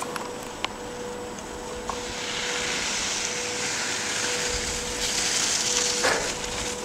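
Skis hissing and scraping over packed snow as a skier turns down the slope toward the camera, swelling from about two seconds in and easing off near the end. A faint steady hum runs underneath.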